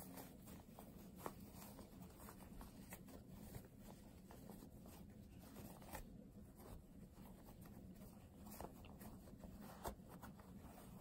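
Faint, irregular rustling and soft scratches of cotton fabric being handled and worked as a small sewn pillow cover is turned right side out through its opening.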